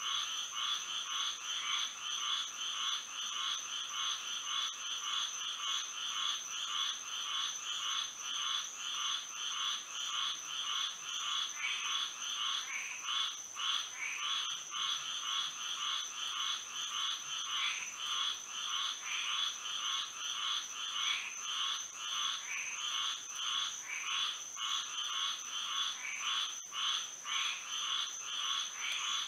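A chorus of many frogs calling in a dense, even run of short, rapidly repeated calls, with a steady high-pitched tone running beneath them.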